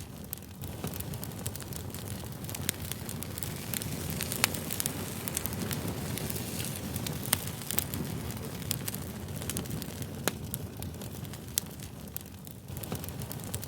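Wood fire burning with a steady low rush and frequent sharp crackles and pops from the burning wood, a few of them louder.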